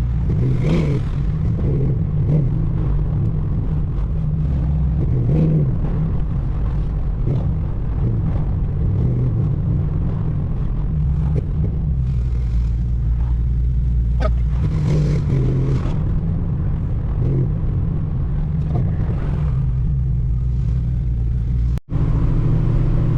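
Buick Regal driving at steady speed: a continuous low engine and road drone, cutting out for an instant near the end.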